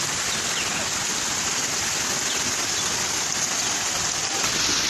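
Steady rain falling on floodwater, an even hiss with no break.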